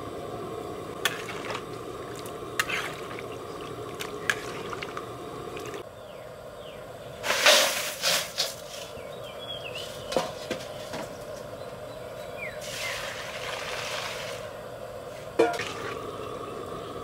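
Water and food poured and splashing into metal cookware, with sharp clinks and knocks of metal pots, bowls and a mesh strainer. The loudest pour is about halfway through and a softer one comes a few seconds later, over a steady background noise.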